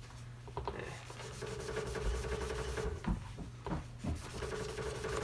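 A wet magic eraser (melamine foam) scrubbing scuff marks off a pebble-finish vinyl door card in quick back-and-forth rubbing strokes, with a few soft knocks. A steady hum comes in twice, about a second in and again near the end.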